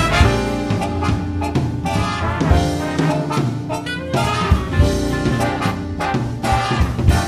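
Jazzy swing-style background music with brass and a steady beat.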